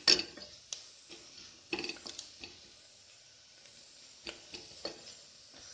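Wooden spatula stirring a masala in an aluminium pressure cooker, knocking and scraping against the pot: a loud click at the start, then scattered single clicks and scrapes a second or so apart.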